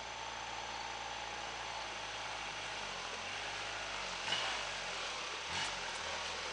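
Kubota RTV 1100 utility vehicle's three-cylinder diesel running at low speed in the distance as it crawls down a steep rock slope, over a steady hiss. A couple of sharp knocks come about four and five and a half seconds in.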